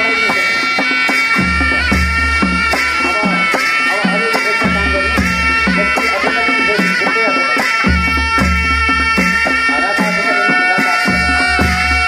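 Dance music with a steady drum beat under long, held melody notes, with a deep bass line that drops in and out.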